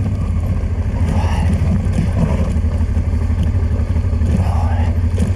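Honda motorcycle engine running at low, steady revs as the bike rolls slowly down a steep rocky track, with an even pulsing beat.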